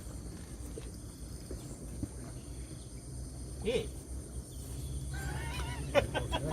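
Rural outdoor ambience: a steady chirring of insects over a low rumble, with a short call about halfway through, then a chicken clucking near the end.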